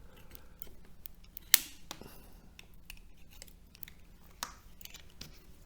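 Small clicks and scrapes of a metal hand tool prying at the lacquered steel laminations of a transformer core, working an I-lamination loose, with one sharp metallic click about a second and a half in and a lighter one near the end.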